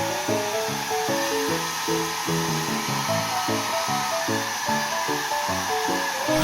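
A hair dryer blowing steadily under background music made of a melody of short, stepping notes.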